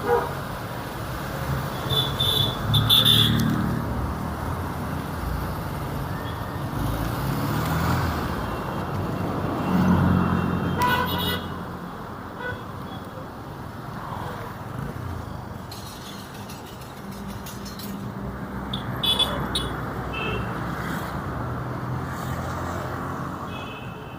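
Busy city street traffic: motor vehicles passing with engines running, swelling and fading as they go by, with several short car horn toots.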